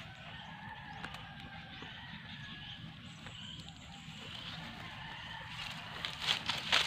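Quiet outdoor ambience with faint thin calls in the background, then from about six seconds in, loud irregular crackling and rustling of dry fronds being trodden on.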